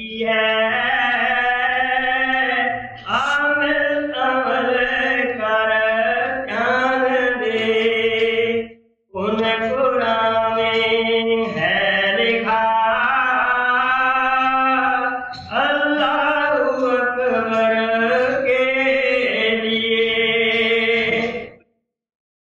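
Devotional chanting by a voice in long, drawn-out notes that bend in pitch. It breaks off briefly about nine seconds in and stops shortly before the end.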